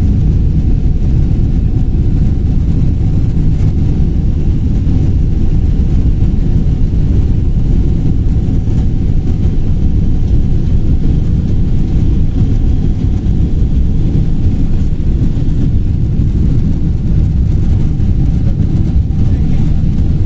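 Jet airliner's engines and airframe heard from inside the cabin during the takeoff roll and liftoff: a loud, steady rumble with a faint steady hum above it.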